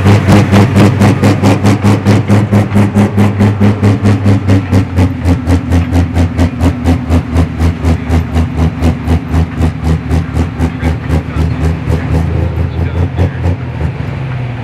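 Pro Stock pulling tractor's turbocharged diesel running hard under load, a loud, fast, even pulsing that drops in pitch about five seconds in and then slowly fades.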